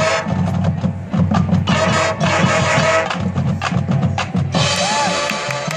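Marching band playing: brass and woodwinds holding notes over a rhythmic run of drum and bass drum hits.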